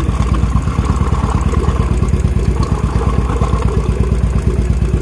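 Royal Enfield Bullet 500 cc single-cylinder engine idling with a steady, even beat, its rocker covers off for tappet adjustment.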